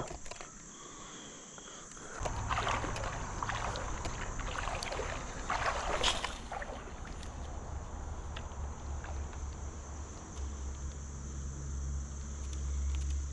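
Insects droning steadily at one high, even pitch, with water sloshing and splashing from about two seconds in until about seven seconds in, over a low rumble that grows stronger near the end.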